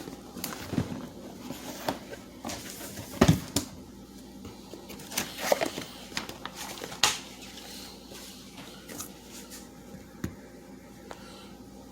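Irregular knocks, clicks and light rustles of a tool kit and its packaging being handled, the loudest knock about three seconds in.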